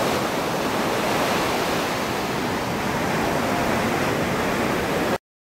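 Ocean surf: a steady rush of breaking and washing waves, cutting off abruptly near the end.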